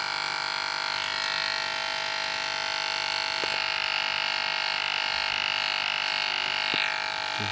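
Cheap electric hair clipper running with a steady buzz, with a couple of faint clicks.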